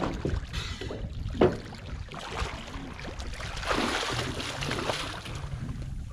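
Water lapping at a small boat's hull, with a single sharp knock about a second and a half in. Around four seconds in, a freediver's fins kick and splash at the surface for about a second and a half as he dives beside the boat.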